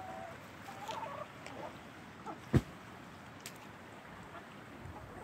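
Chickens making a few soft, short calls, with one sharp knock about two and a half seconds in.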